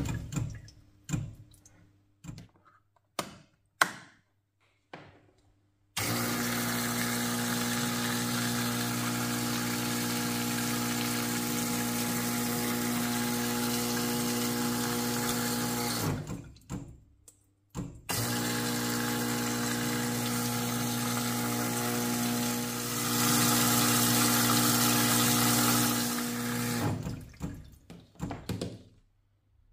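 Parkside cordless backpack sprayer's electric pump running while water from its outlet hisses into the tank. It starts about six seconds in, cuts out briefly about ten seconds later, then runs again with the spray getting louder for a few seconds before stopping near the end. A few short drips and knocks come before and after.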